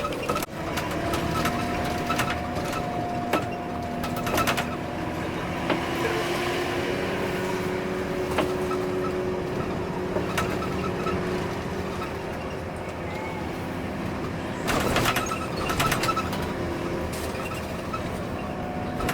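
Hino RK8 R260 tour bus's diesel engine running while driving, heard from inside the bus, its pitch settling lower about a quarter of the way in. A few sharp knocks and rattles break in, bunched near the end.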